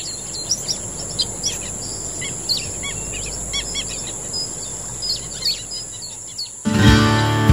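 Several wild birds chirping and singing in quick, varied calls over a steady high-pitched whine. Acoustic guitar music comes in suddenly near the end and cuts the birdsong off.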